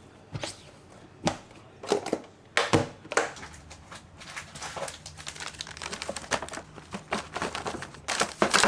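Someone eating crisp food: a few sharp crunching clicks, then a denser run of small crackles and crinkles that grows busier near the end.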